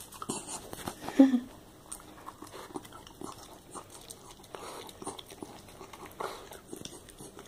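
Small dog eating cooked zucchini noodles from a plastic tub held out to it: chewing and licking, with scattered small clicks of teeth and snout against the plastic. One short, loud sound about a second in.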